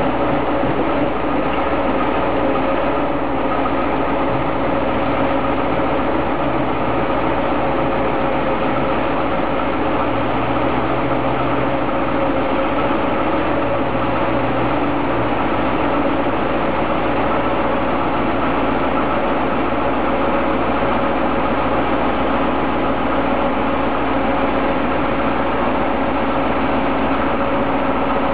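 Old Soviet EO-5123 crawler excavator's diesel engine idling steadily.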